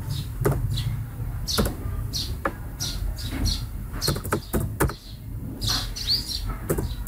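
Computer keyboard keystrokes: irregular short clicks, a few a second with pauses between, as a string of letters and digits is typed, over a steady low hum.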